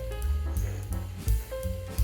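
Background music with a steady bass and drum beat.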